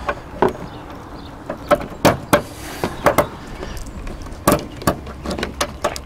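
Irregular sharp clicks and clacks of hands working the A/C gauge hose couplers and service-port caps in the engine bay, with a short faint hiss a little past two seconds in.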